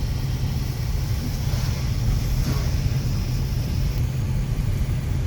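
Steady low rumble of a car driving, heard from inside the cabin, with an even hiss of air and road noise over it.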